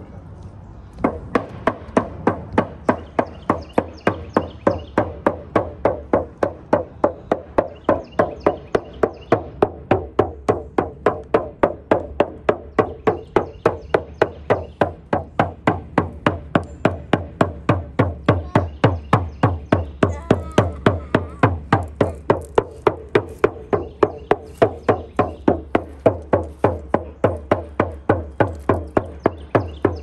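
Hand frame drum struck with a padded beater in a steady beat of about three strokes a second, starting about a second in, played close over a person in a drum cleansing.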